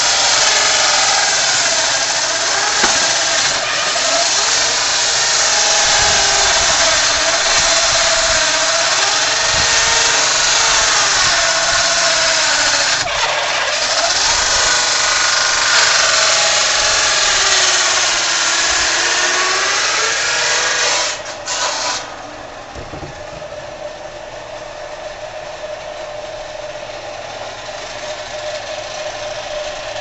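Motor-driven circular saw bench ripping a hardwood log: a loud, noisy saw whine whose pitch sags and recovers as the blade is loaded by the cut. About 21 seconds in the cut ends, and the saw runs on much more quietly with the blade spinning free.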